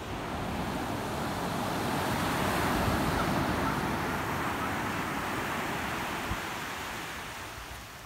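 Ocean surf washing up a shore of dark sand and pebbles. One wave's rush swells to its loudest about three seconds in, then fades away.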